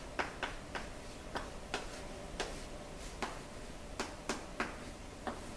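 Chalk writing on a blackboard: a dozen or so short, irregular taps and scratches as brackets and digits are chalked up.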